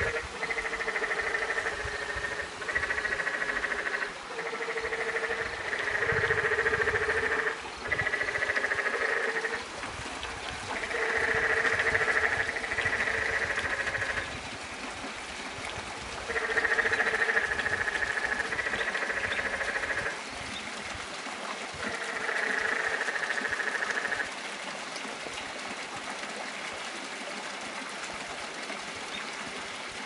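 Frogs calling in a run of repeated calls, each about one to two seconds long, that stops about 24 seconds in. Under them runs the steady rush of a mountain stream, which goes on alone after the calls stop.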